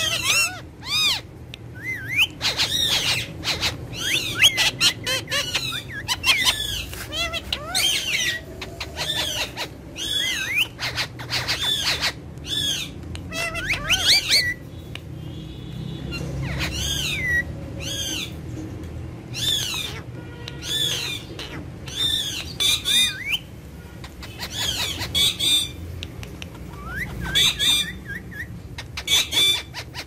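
Two Indian ringneck parakeets chattering and calling: a steady stream of short, arching chirps and squawks, with a brief lull about halfway through.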